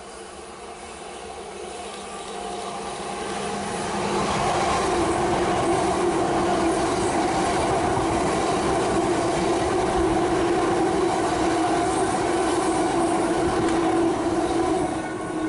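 Electric multiple-unit passenger train running through a station platform without stopping. Its rumble builds over the first few seconds, then stays loud with a steady hum as the coaches pass close by, and drops off near the end as the last coach goes.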